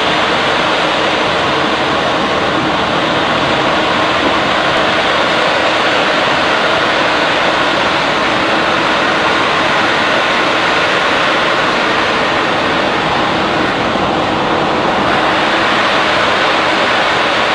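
Plastic sheet extrusion line machinery running with a steady, loud, even noise.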